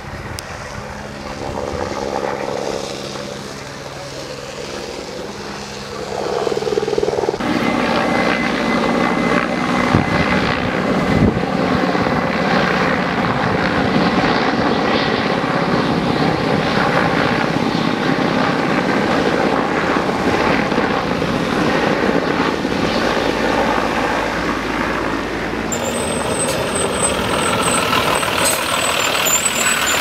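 Firefighting helicopter carrying a slung water bucket, its rotor and engine faint at first, then loud and steady from about seven seconds in. Near the end a forest-service fire tanker truck passes close by.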